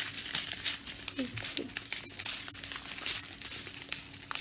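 Plastic crinkling from a strip of small sealed sachets of diamond-painting drills being handled and turned over as they are counted: a run of quick, irregular crackles.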